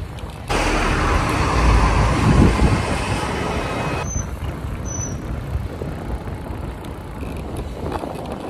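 Riding noise from a bicycle on the move: tyre rumble and wind on the microphone. It is loud from about half a second in and cuts off sharply at about four seconds, then goes on quieter and steady, with two short high chirps.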